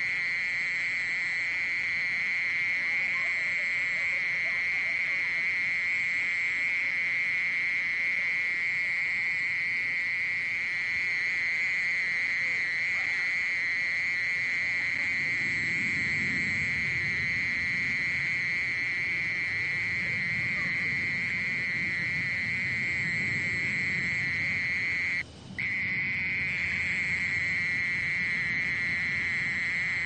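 Oriental mole cricket (Gryllotalpa orientalis) singing at 27 °C: a continuous, even trill. It breaks off for a split second about 25 seconds in.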